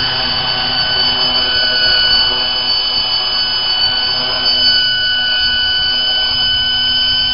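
Radio-controlled 500-class helicopter with a six-blade fenestron tail hovering low as it comes in to land: a steady, high-pitched whine from its rotor drive over the rush of the blades.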